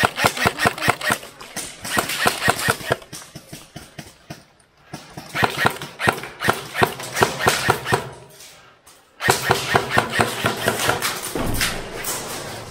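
Airsoft electric rifles firing long full-auto bursts, a rapid clatter of shots. There are three bursts: one at the start, one from about five seconds in, and one from about nine seconds in.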